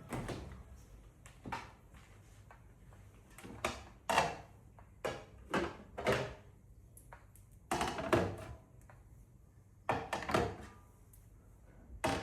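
Irregular knocks and thunks of household items being handled and set down, about a dozen scattered short impacts with quiet between them.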